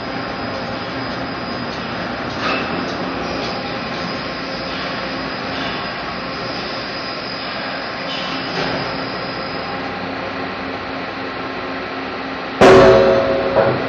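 Steady hum and hiss of a steel pipe works, with a few light metal knocks. Near the end comes a sudden loud clang of steel that rings on for about a second.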